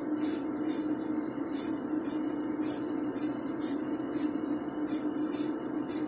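Spray paint hissing in a dozen or so short bursts, about two a second, as a model car body is sprayed in Ford Rimini blue. A steady hum from the spray booth's extractor fan runs underneath.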